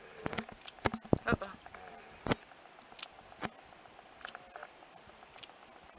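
Scissors snipping the spines off a lionfish: a string of sharp, irregular clicks, about a dozen, closest together in the first couple of seconds.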